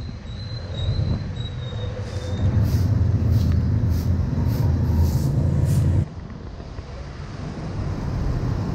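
A soft grass broom sweeping leaves across concrete into a plastic dustpan, with brushing strokes about twice a second. A heavy low rumble runs underneath and drops off suddenly about six seconds in.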